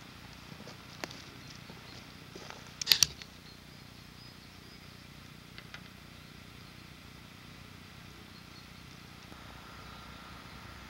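A light picker fishing rod being set into a metal bank-stick rod rest: a few sharp clicks and knocks, the loudest a quick rattle of clicks about three seconds in, over a faint steady outdoor background.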